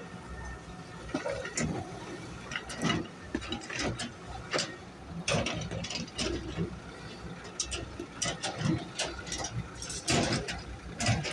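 Road construction noise: a steady engine rumble with irregular knocks and clatters.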